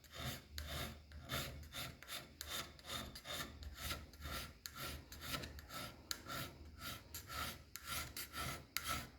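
Hand scraper strokes on a lathe's cast-iron cross slide, a short scraping rasp about twice a second. This is rough scraping to break up the high spots and spread the bearing contact.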